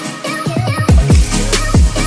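Electronic dance music in a dubstep / drum-and-bass style, with heavy bass notes that drop steeply in pitch about twice a second, coming in about half a second in.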